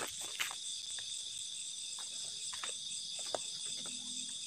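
Crickets and other night insects chirring in a steady high-pitched chorus, with a few faint scattered clicks.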